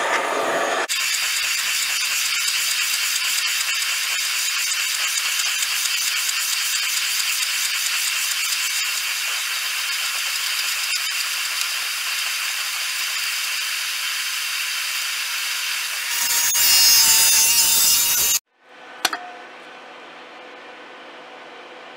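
Jeweller's soldering torch hissing steadily, its deeper rush of flame dropping away about a second in; the hiss grows louder and brighter near the end and then cuts off. After a click, a faint steady hum remains.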